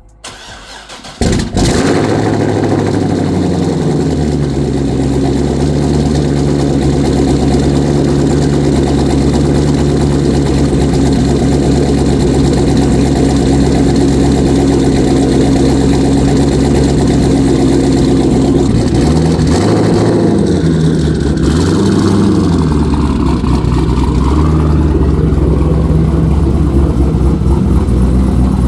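A car engine starts about a second in and settles into a steady idle. It is revved briefly twice around two-thirds of the way through, then drops back to idle.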